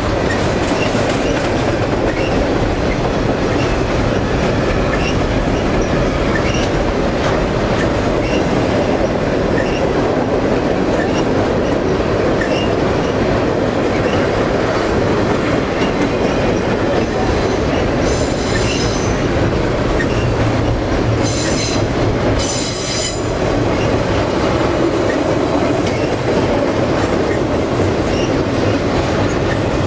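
Double-stack intermodal container train cars rolling past: a steady rumble of steel wheels on rail with light repeated clicks. High-pitched wheel squeal rings out twice, about two-thirds of the way through.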